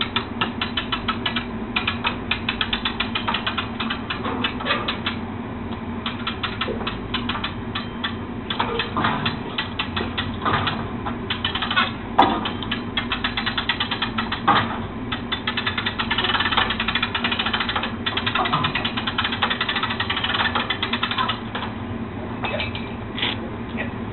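Portable crane's winch ratcheting in fast, even clicks as a chiller compressor is hoisted. The clicking comes in runs of several seconds with short pauses between them.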